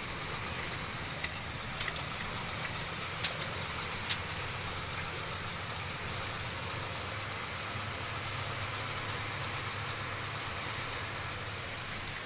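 Steady drone inside a vehicle cab driving along a flooded, wet highway: low engine and road hum with the hiss of tyres on water-covered pavement. A few short sharp ticks come in the first four seconds.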